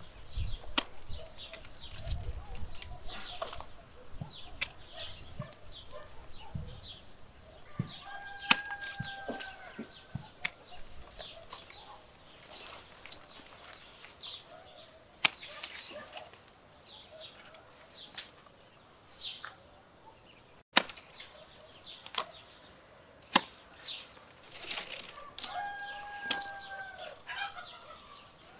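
Hand pruning shears snipping through flat-peach branches, a sharp click with each cut, coming irregularly every one to a few seconds. Twice a short pitched call sounds in the background.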